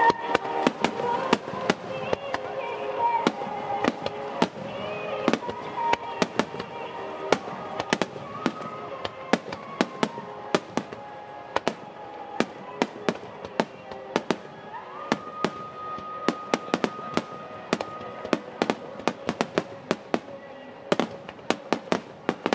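Aerial firework shells bursting one after another, sharp bangs and crackles at irregular intervals that come in a dense cluster near the end. Faint music and voices run underneath.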